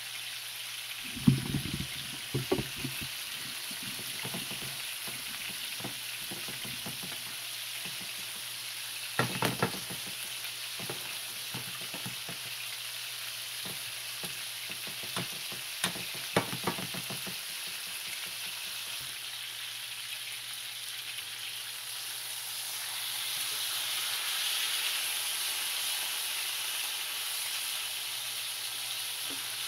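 Chicken pieces frying in oil in a cast-iron skillet, with onions and bell peppers frying in a second pan: a steady sizzle that grows louder about two-thirds of the way through. Three short bouts of a wooden spoon knocking and scraping in the pan as the vegetables are stirred.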